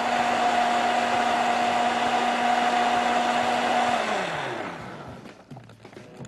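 Countertop blender running steadily, puréeing tomatoes, onion, garlic and stock into a smooth liquid. About four seconds in it is switched off and the motor winds down with a falling hum, fading out a second later.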